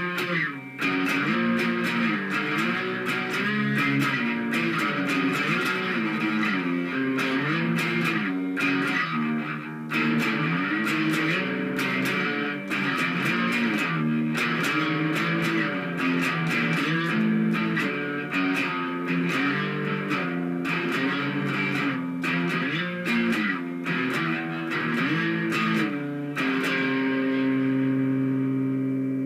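Fender electric guitar played solo: a continuous line of picked single notes moving up and down, settling into a held note near the end.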